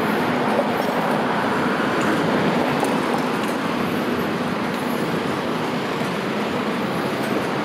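Steady city traffic noise: a continuous rumble of vehicles with a faint hum, no single event standing out.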